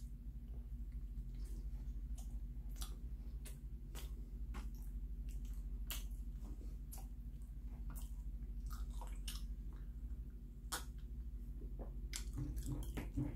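A man chewing bread: irregular soft mouth clicks and smacks, over a steady low hum.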